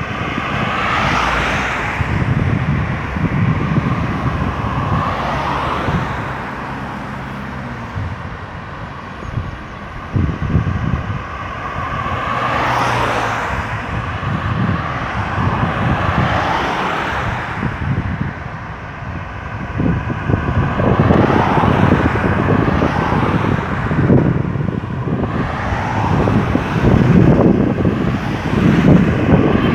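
Highway traffic: cars and other vehicles passing one after another, each swelling and fading as it goes by, with a low engine hum between passes.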